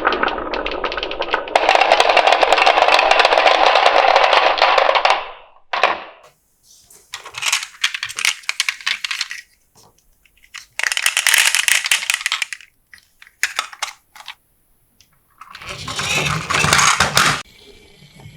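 Marbles rolling and clattering down a marble run track, a long stretch of dense rapid clicking followed by several shorter bursts with quiet gaps between.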